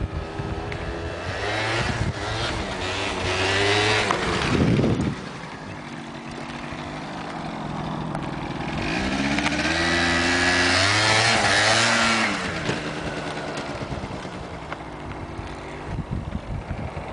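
MBK Booster 50 cc two-stroke scooter engine revving up and down under throttle, as in wheelie attempts. The first hard rev cuts off sharply about five seconds in. A second loud rev runs from about nine to twelve seconds, and then the engine goes quieter.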